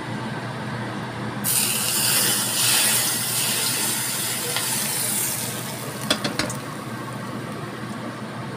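Hot oil poured from a wok onto grated ginger and chopped spring onion in a bowl, sizzling sharply from about a second and a half in and dying away over about four seconds. A few light clicks follow about six seconds in.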